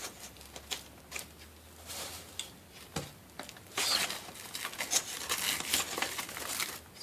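Packing material crinkling and rustling as a plastic-wrapped model part is handled and unwrapped, with scattered small clicks; the rustling gets louder about four seconds in.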